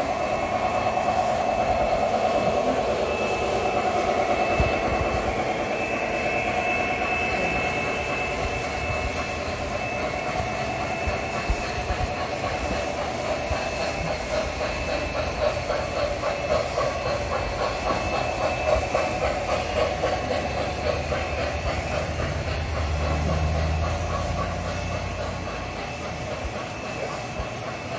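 Model trains rolling on the layout's track: running noise of the wheels and motors, with a rhythmic clicking in the middle stretch. A low hum swells near the end as the model Pere Marquette Berkshire steam locomotive and its freight cars pass close by.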